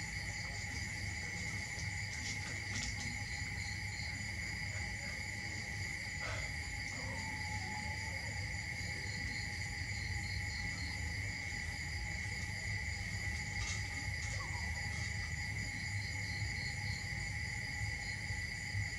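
Steady insect chorus: a continuous high shrill with fainter pulsing trills above it, over a constant low rumble.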